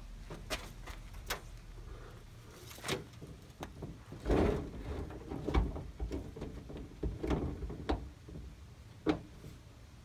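Scattered metal clicks, clunks and scrapes from the sliding side door of a 1977 VW Type 2 bus as its rear guide is worked into the door track, with the heaviest knocks a little before the middle.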